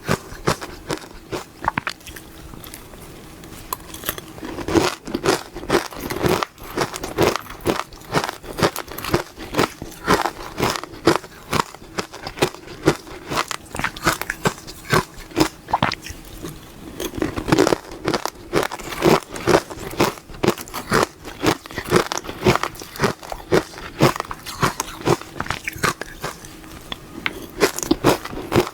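Close-up biting and chewing of powdered ice dusted with matcha: a dense run of crisp, crackling crunches, several a second, continuing without pause.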